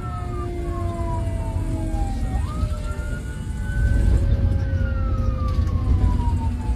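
Fire engine siren wailing, heard from inside the moving truck's cab over the low rumble of engine and road. The pitch falls slowly, sweeps back up about two and a half seconds in, holds, and falls again toward the end.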